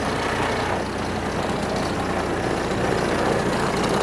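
Diesel engine of a Manitou telehandler running steadily close by, with a slight rise in level about halfway through.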